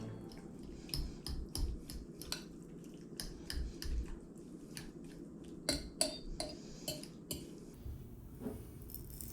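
Irregular light clinks and taps of kitchen utensils against dishes. A few of them, just after the middle, ring briefly.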